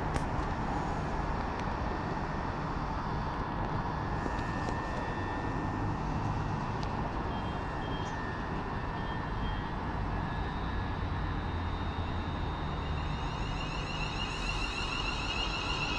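Class 350 Desiro electric multiple units at a platform, with a steady hum from their equipment. From about 13 seconds in, a whine rises in steps as the traction motors power up for departure.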